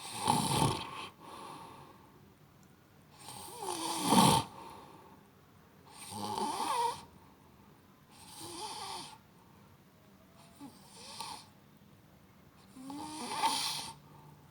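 A person snoring: six breaths about two seconds apart, the loudest about half a second in and about four seconds in.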